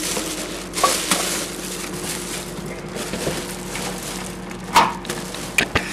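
Plastic shopping bag full of recyclables rustling and crinkling as it is handled and carried. It has a few sharp knocks about a second in, then a cluster of clicks and knocks near the end as the door knob is turned and the door opened.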